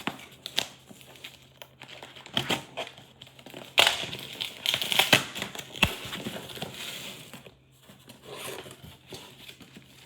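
Paper and packaging crinkling and rustling as a parcel is unpacked by hand, with irregular clicks and knocks of handling. The busiest stretch of rustling comes around the middle.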